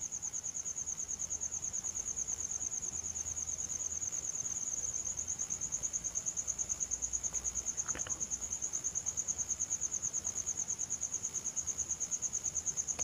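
A cricket chirping steadily in a high, evenly pulsing trill, about eight pulses a second.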